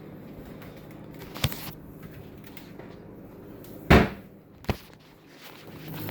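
Kitchen cabinet doors being opened and shut: a light knock about a second and a half in, a loud bang just before the four-second mark, and a smaller knock shortly after.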